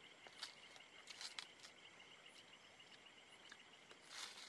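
Faint, steady chirping of insects, a continuous pulsing trill. It is broken by a few soft clicks and rustles from small items being handled, the longest near the end.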